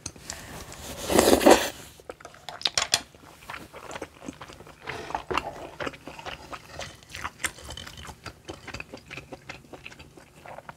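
Close-miked eating sounds of spicy rosé tteokbokki: a loud slurp about a second in, then wet chewing and many small mouth clicks as the chewy rice cakes are eaten.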